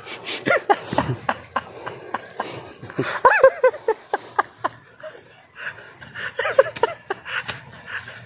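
Short wordless vocal sounds, a few brief chuckles and grunts, over scattered wet clicks and squelches from hands working in paddy mud at an eel hole.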